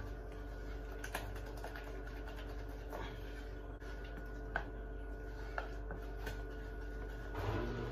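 Wooden spoon stirring chopped chocolate into melted chocolate in a plastic bowl, with soft scraping and a few scattered light taps against the bowl. A steady low hum runs underneath.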